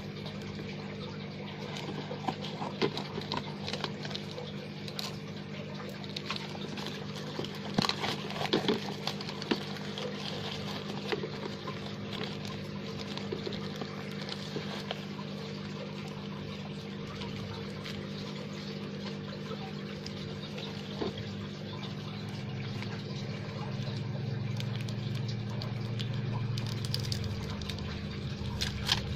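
Steady hum and bubbling of an aquarium air line, with scattered snips, crinkles and rustles as scissors cut and hands tear open a paper-wrapped parcel.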